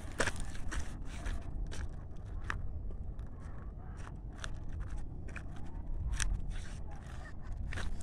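Footsteps crunching and scraping on loose stones and gravel during a descent down a scree slope, a few uneven steps a second.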